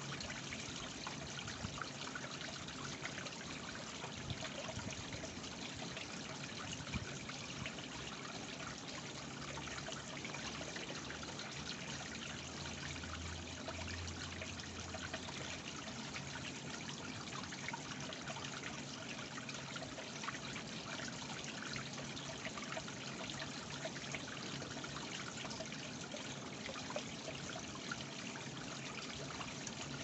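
Small stacked-stone garden waterfall trickling and splashing steadily into a pond.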